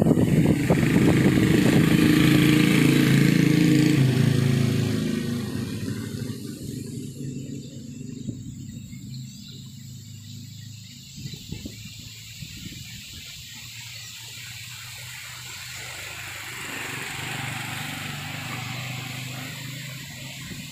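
Strong wind gusting through trees, rising and easing, with a swell near the end. In the first few seconds a motor engine runs steadily and then fades away.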